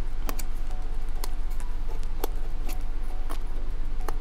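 Hobby knife trimming a balsa rudder frame: a series of sharp ticks, roughly one a second, over a steady low hum.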